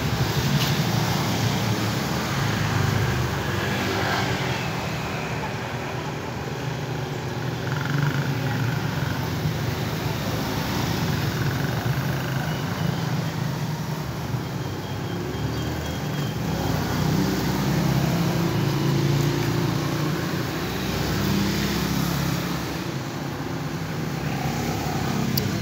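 Motor vehicle engine noise: a steady low rumble that swells and eases several times.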